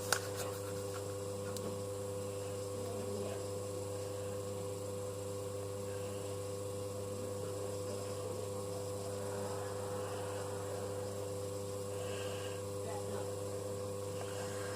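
Steady electrical hum made of several fixed tones, even in level throughout.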